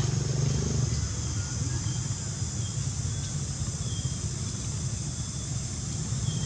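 Steady low rumble with an even hiss of outdoor background noise, with a few faint, short high-pitched peeps.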